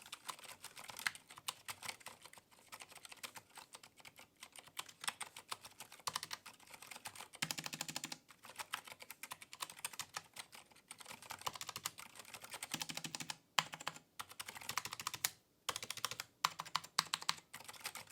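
Typing on an X-Bows mechanical ergonomic keyboard with Gateron brown tactile switches: a quick, continuous patter of key clicks, with a few brief pauses in the second half.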